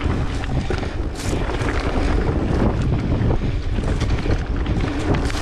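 Mountain bike rolling along a dirt singletrack, tyres rumbling over the ground, with many short rattles and knocks from the bike over bumps. Steady wind rushes over the camera microphone throughout.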